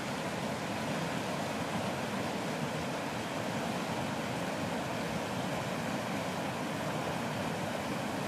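Meltwater river rushing in small rapids over a sand bank: a steady, even sound of fast-running water.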